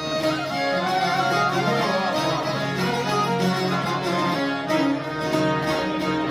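Instrumental music: a violin playing a melody over plucked string accompaniment, with no singing.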